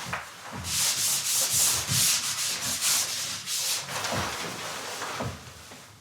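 A quick run of rasping, rubbing strokes, roughly three a second for about three seconds, followed by a couple of soft thumps.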